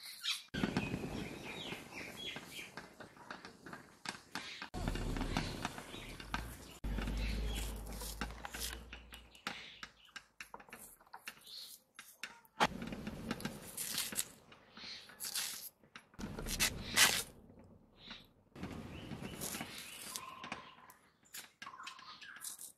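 Potato being peeled and sliced against a boti's curved iron blade: repeated scraping and sharp clicks as the blade shaves and cuts through the tuber, with a few stretches of low rumble. Birds chirp faintly in the background.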